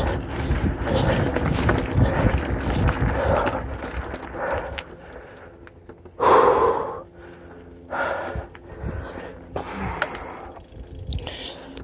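Mountain bike rolling fast down a dirt trail, a rough rumble and rattle for the first few seconds. Then the rider breathes hard: one loud exhale about six seconds in, followed by heavy breaths about once a second.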